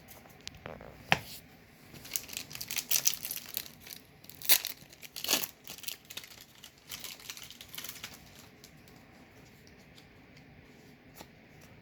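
Foil booster-pack wrapper being torn open and crinkled, in irregular crackles over several seconds after a sharp click about a second in, dying down near the end.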